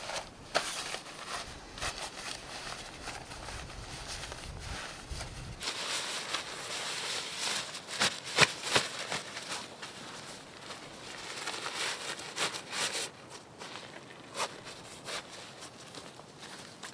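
Camping gear being packed by hand: rustling and crinkling of nylon stuff sacks and pack fabric, with scattered clicks and knocks. The loudest is a short cluster of sharp clicks about eight seconds in.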